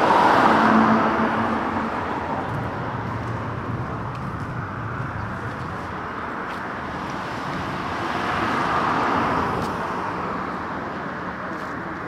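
Cars passing by on a road: a loud pass right at the start that fades over about two seconds, then a second car swelling and fading about eight to nine seconds in, over a steady traffic hum.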